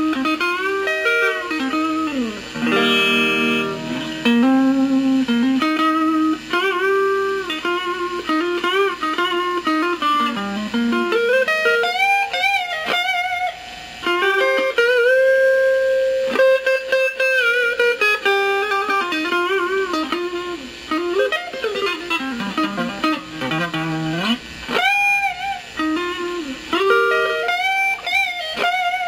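Clean-toned Stratocaster-style electric guitar with single-coil pickups, played through a compressor pedal: single-note lead lines with string bends and vibrato. A strummed chord rings about three seconds in, and one long sustained note is held near the middle.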